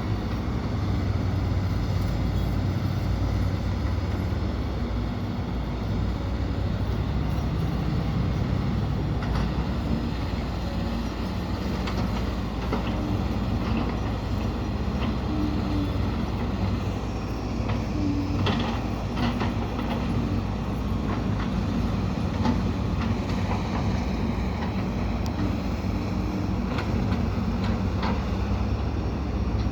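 Diesel engines of heavy earthmoving machinery (excavators, dump trucks and a bulldozer) running steadily, with scattered metallic clanks and knocks from the machines at work.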